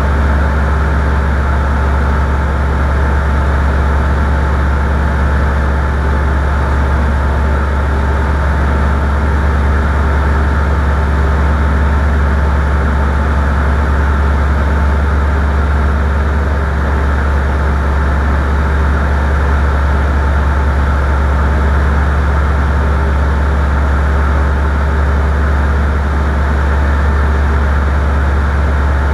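A steady, loud, low engine drone with an even hum that does not change in pitch or level.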